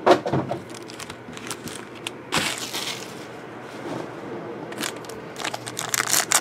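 Foil trading-card pack wrappers crinkling and crackling as the packs are handled, with a sharp knock at the very start and a dense run of crinkling near the end as a pack is picked up in the hands.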